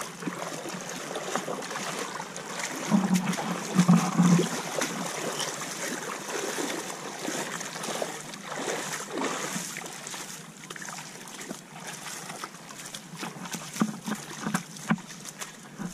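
Shallow seawater lapping and trickling over shoreline rocks, with splashes from someone wading through it and a few heavier sloshes about three to four seconds in.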